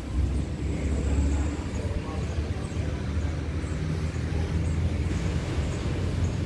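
Diesel train locomotive running with a low, steady rumble.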